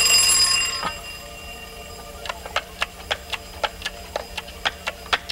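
Twin-bell wind-up alarm clock ringing loudly, then cut to a faint, muffled ring with a knock about a second in as a glass bell jar is set down over it. From about two seconds in, a quick series of sharp clicks, some four to six a second, runs over the muffled ringing.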